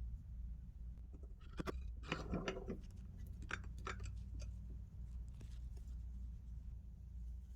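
Light clicks and a short rattle of small metal snap parts and dies being handled, with a few more single clicks after. A low steady hum sits underneath.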